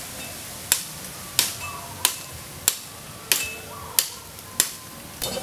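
Machete chopping into a bamboo stalk: sharp, evenly spaced strikes, about one and a half a second, nine in all.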